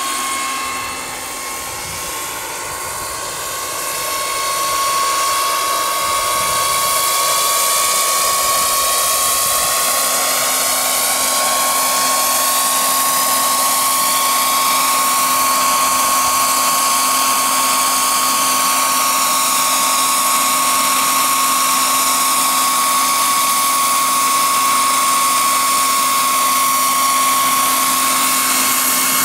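Gas-turbine engine and rotors of a large radio-controlled Sikorsky S-64 Skycrane scale model helicopter: a steady high whine over a rushing hiss. It grows louder over the first several seconds as the helicopter comes in, then holds steady while it hovers just above the grass.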